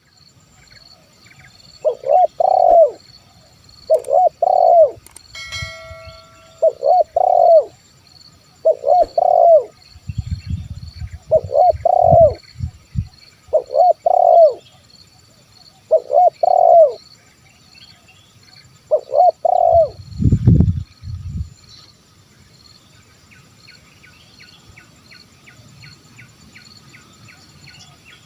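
Spotted dove cooing, its phrase repeated eight times about every two seconds and stopping a little after two-thirds of the way through. Insects chirr steadily behind it, and a few low thuds sound near the middle and just after the last coo.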